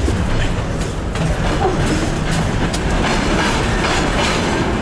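Passenger train rolling along the rails at the platform, a steady low rumble with scattered clicks from the wheels.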